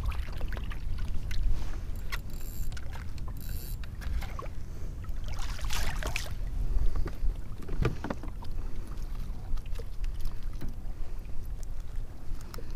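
A kayak drifting on choppy water: water lapping and splashing against the hull, with wind rumbling on the microphone and scattered knocks.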